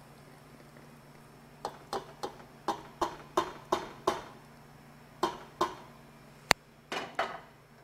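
A metal cup knocked again and again against the rim of a stainless-steel stockpot to shake the last of the reduced cream into the soup: about a dozen sharp metallic knocks in quick runs, starting about a second and a half in. A low steady hum runs underneath.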